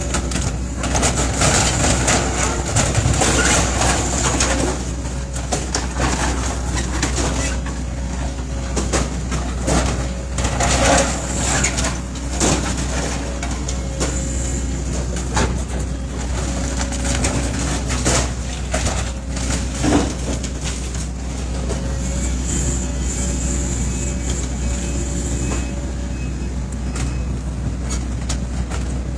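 Demolition machinery tearing into a building: a heavy diesel engine drones steadily throughout, with irregular cracks, crunches and knocks of breaking, falling debris.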